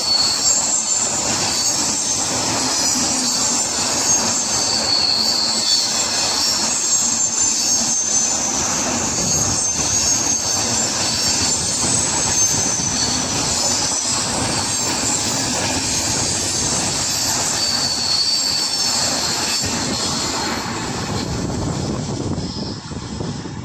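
Passenger express train coaches running past at speed: a steady rumble of wheels on the rails with high, wavering wheel squeal and some clickety-clack, fading near the end.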